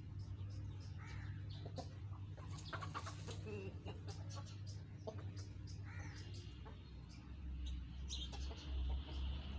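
Chickens, a rooster and hens, clucking softly as they forage, over many short sharp ticks and a steady low hum. A louder low rumble swells near the end.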